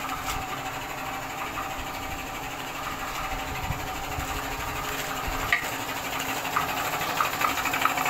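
A machine running steadily, a constant mechanical hum and whirr, with a few faint knocks and clicks.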